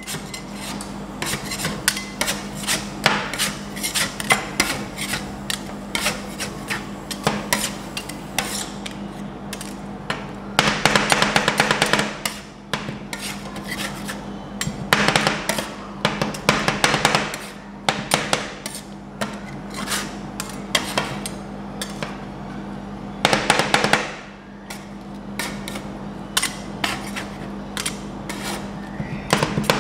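Two metal spatulas chopping and scraping on a frozen steel ice-cream-roll pan as sweet corn is cut into the cream base and the freezing mix is spread and gathered. Rapid sharp taps throughout, with three runs of faster, louder chopping and scraping, over a steady low hum.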